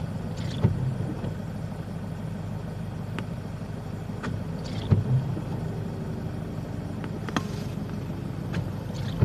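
Car engine idling, heard from inside the cabin, a steady low rumble with a few scattered sharp clicks.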